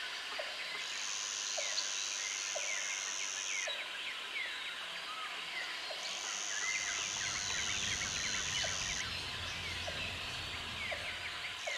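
Outdoor bush soundscape: a dense chorus of small birds chirping, with a high insect buzz that comes on for a few seconds at a time and stops again. A soft click repeats about once a second, and a low rumble rises partway through.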